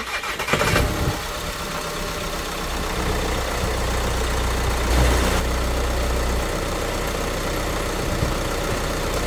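VW Crafter van's diesel engine firing up, then idling steadily, heard with the bonnet open.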